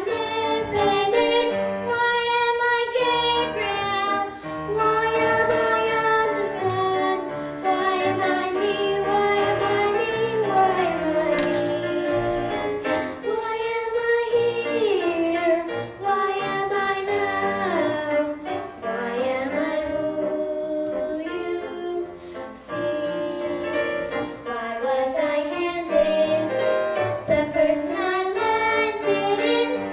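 Young girls singing a song with musical accompaniment.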